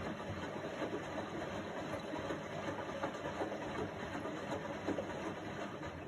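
Indesit front-loading washing machine running a wash, its drum turning the wet laundry: a steady churning with many small knocks and splashes.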